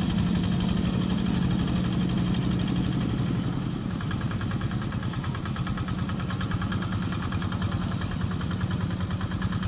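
Single-cylinder diesel engine of a Quick two-wheel walking tractor running steadily under load, with a fast even firing beat. About four seconds in it gets a little quieter and the beat becomes more prominent.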